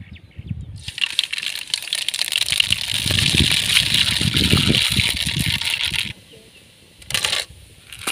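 Hot oil crackling and spattering in a large aluminium pan over a wood fire, a dense run of tiny pops that stops suddenly about six seconds in. Two shorter bursts of sizzling follow near the end as chana dal goes into the oil.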